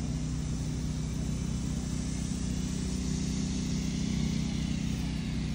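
Mud drag Ford Ranger truck's engine idling steadily.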